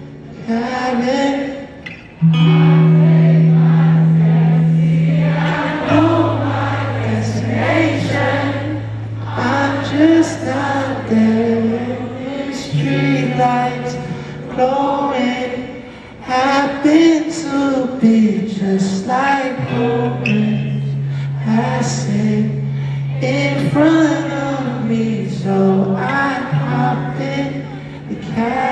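Live concert music recorded from the audience: a male singer's voice rises and falls over long, held low bass notes that shift pitch every few seconds.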